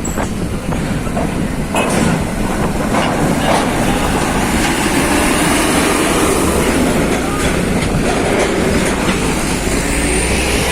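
Heavy diesel truck driving past close by, engine running under a steady loud rumble, with scattered knocks and clanks from the rolling vehicle.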